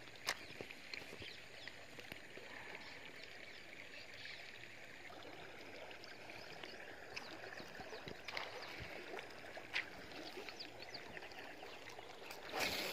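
Faint waterside ambience with scattered light ticks and a few sharp clicks, then a brief louder rustle near the end.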